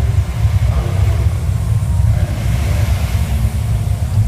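Loud, deep, continuous rumbling from the Fall of Atlantis fountain show's sound system, a low-pitched effect that surges and churns without letting up.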